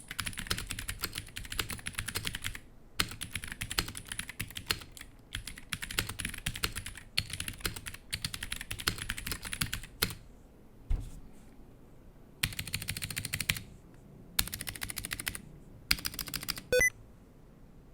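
Fast typing on a Womier HS-K87 mechanical keyboard with clicky Gateron Blue switches, in runs of rapid keystrokes broken by short pauses, the longest lasting about two seconds a little past halfway.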